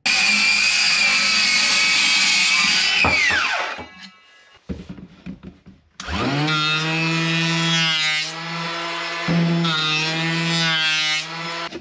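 Electric woodworking power tool running steadily, then switched off and spinning down with a falling whine about three seconds in. A couple of seconds later a power tool starts up with a rising hum and runs, its note wavering, until it stops near the end.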